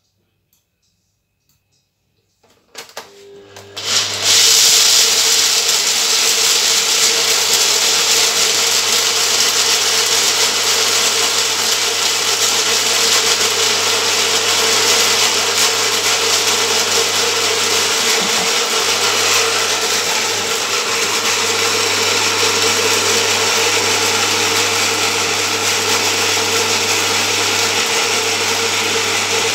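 Bosch kitchen machine's blender attachment grinding peanuts into a coarse meal. After a few clicks about three seconds in, the motor comes up and runs loud and steady to the end, with an even hum under the grinding noise.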